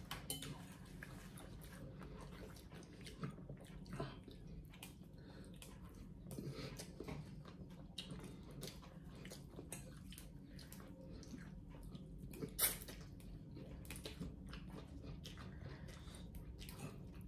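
Quiet eating at a table: slurping of pho noodles and broth, with small clinks of a metal spoon and fork against ceramic bowls and one louder click about twelve seconds in.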